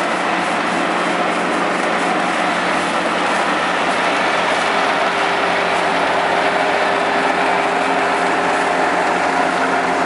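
KC-575 rice combine harvester running steadily while it cuts and threshes standing rice, its engine and machinery making a continuous loud drone with a few steady tones in it.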